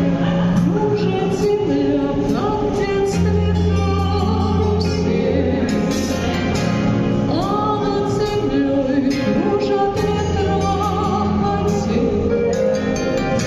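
Music: the opening of a pop ballad played over a backing track, with a steady bass line under a melody that slides up into its notes.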